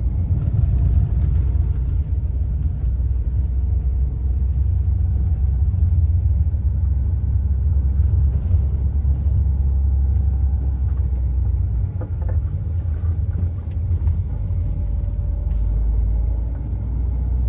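A vehicle travelling along a dirt road: a steady, heavy low rumble with a faint engine note above it, dipping briefly about twelve seconds in.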